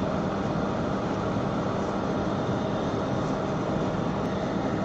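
Steady hum and rush of air from a hot-air rework station's blower fan running continuously.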